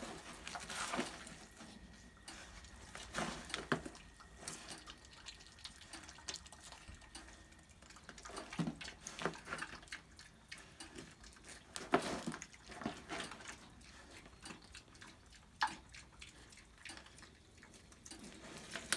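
Wet, irregular smacking and clicking of an animal chewing as it eats fish.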